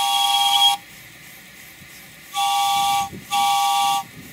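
Steam chime whistle on a miniature live steam locomotive, blown in three short blasts, each a chord of several steady tones. The first sounds at the start, and the other two come close together from about two and a half seconds in.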